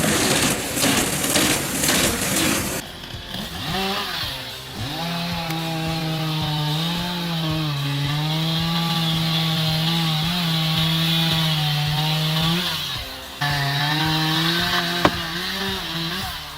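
Chainsaw engine running at high speed, its pitch sagging and recovering as the chain bites into wood. For the first three seconds there is a harsh, crackling noise instead, and the engine sound briefly drops out near thirteen seconds.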